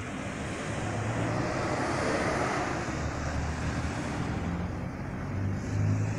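Road traffic: car engines running and vehicles going by, with a low engine hum that swells about two seconds in and grows louder near the end.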